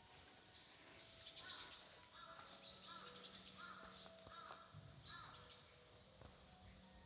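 Crow cawing in a run of short, repeated caws, faint, over a low steady hum.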